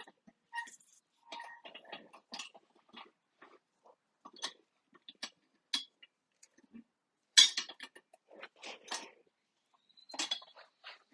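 Scattered metal clinks and clanks, with the loudest clank about seven and a half seconds in, from a manual tire changer and tools being handled while breaking a tire's bead.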